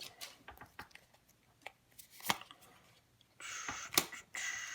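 Magic: The Gathering trading cards being handled: a few light clicks and taps, then about three and a half seconds in a steady scratchy rasp of cards sliding against one another as they are shuffled through.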